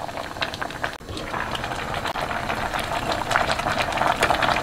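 Spicy pork backbone stew boiling in a stainless steel pot, a dense bubbling crackle that grows louder after about a second.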